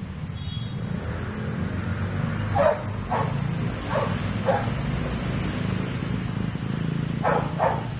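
A dog barking: six short barks in three quick pairs, about two and a half, four and seven and a half seconds in, over a steady low rumble.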